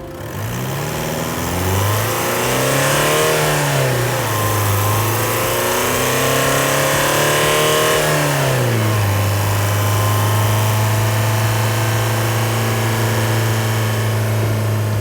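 Audi A4 B8's 2.0 TDI four-cylinder turbodiesel engine revving: its pitch rises and falls a couple of times over the first nine seconds, then holds steady at a constant engine speed.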